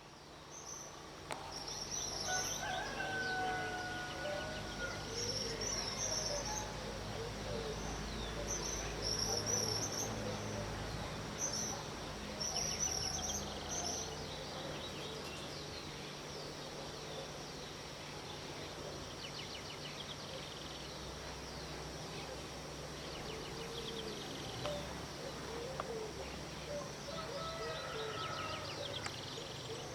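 Early-morning bird chorus: many birds chirping and calling in repeated high phrases, with a rooster crowing about three seconds in and again near the end, over a low steady hum.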